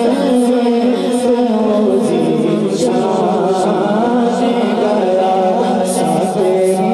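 A young man's solo voice singing an Urdu naat, a devotional song in praise of the Prophet, into a microphone in long, ornamented held notes.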